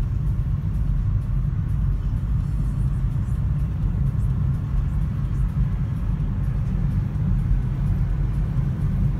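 Steady low rumble of a car driving, heard from inside its cabin: engine and tyre noise.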